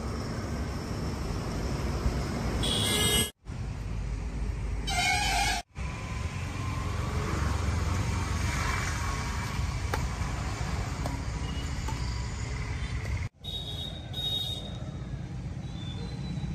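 Outdoor traffic noise with brief vehicle-horn toots about three and five seconds in, broken by several abrupt cuts where the sound drops out and restarts.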